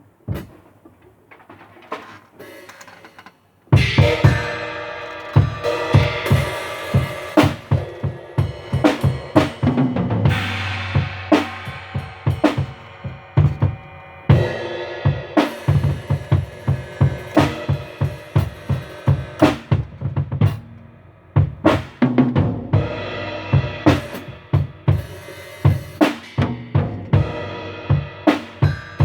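Drum kit being played: a few single hits, then about four seconds in a steady beat starts on bass drum, snare and cymbals.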